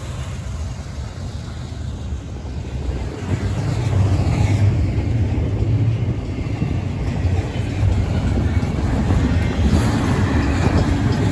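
A Union Pacific double-stack intermodal freight train rolling past at a grade crossing. The trailing diesel locomotives give way to container well cars, whose wheels on the rails make a steady low rumble that grows louder about three and a half seconds in.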